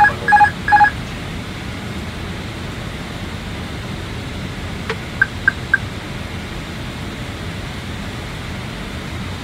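Steady rush of airflow and system noise in an Airbus airliner's cockpit in flight. Right at the start, three two-tone electronic chimes sound in quick succession, and about five seconds in, three short high pips.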